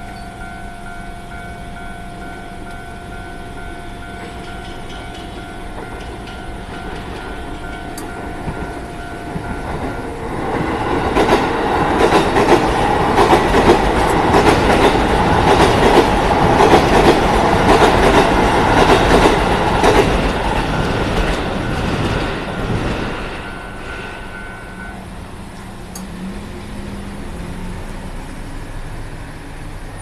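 Japanese level-crossing warning bell dinging repeatedly. About a third of the way in, a JR Yokohama Line E233-series electric train runs over the crossing, its wheels clattering over the rail joints, loudest in the middle and fading after about twelve seconds. The bell stops soon after the train has passed.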